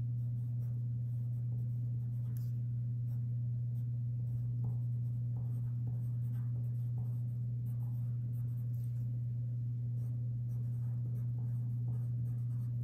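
Pen tip scratching lightly on paper as a line of small text is handwritten, in faint, irregular strokes. A steady low hum sits underneath and is the loudest thing throughout.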